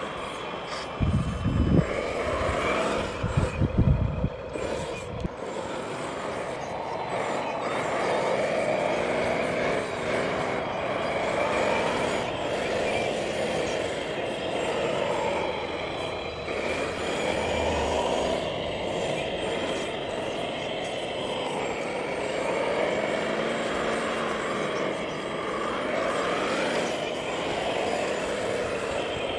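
Radio-controlled construction models, a wheel loader and a tractor, run steadily while working a pile of soil. A few loud low rumbling bursts come about one to five seconds in.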